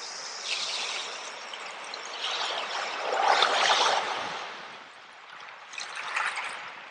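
Water trickling in a small stream, in uneven surges that grow louder about three seconds in and again near the end.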